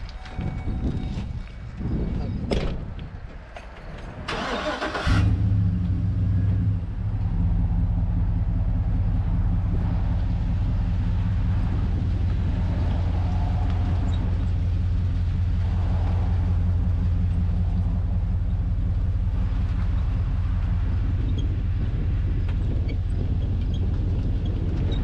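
A pickup truck's engine cranks briefly and fires about five seconds in, then runs steadily as the truck moves off slowly. Before it, a few knocks, the sharpest about two and a half seconds in.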